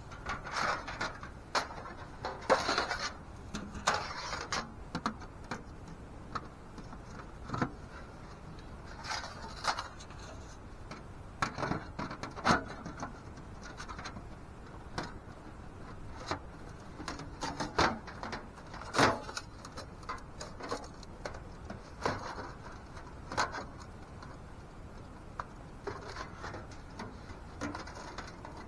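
Parts of a Seek Outside tent stove being handled and fitted together during assembly: irregular clicks, knocks and short scrapes, some sharp and loud, with pauses between them.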